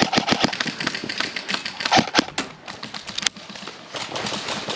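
Airsoft guns firing a rapid string of shots, several sharp cracks a second, thinning out after about two seconds.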